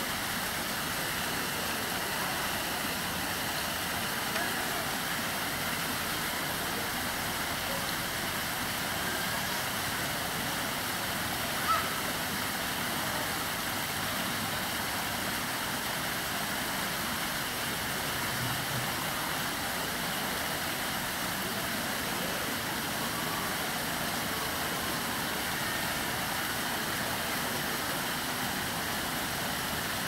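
Artificial stepped rock waterfall: water spilling steadily down several stone tiers in an even rush, with a brief sharp click about twelve seconds in.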